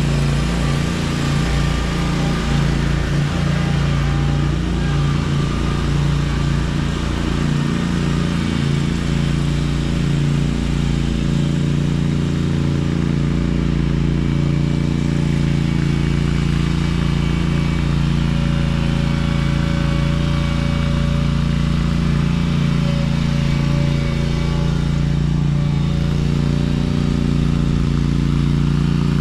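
Small engine of a piece of lawn-care equipment running steadily at a constant speed, an even drone with no revving or stops.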